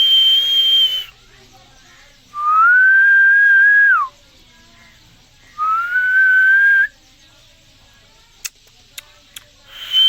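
Rose-ringed parakeet whistling. A long high whistle ends about a second in. Two lower whistles follow, each rising and lasting about a second and a half, the first dropping off sharply at its end. A high whistle starts again at the very end.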